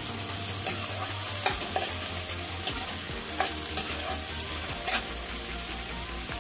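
Prawns and sliced onion sizzling in hot oil in a steel kadhai while being stirred, the steel spoon scraping and clinking against the pan every second or so.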